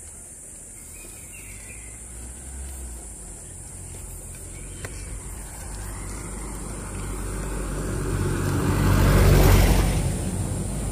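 A motor vehicle approaching from behind and passing close by on the road. It grows steadily louder, peaks about nine and a half seconds in, then fades.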